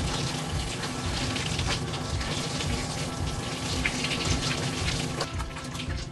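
Handheld shower sprayer spraying water onto a cat's wet coat and splashing onto the tub grate, stopping about five seconds in.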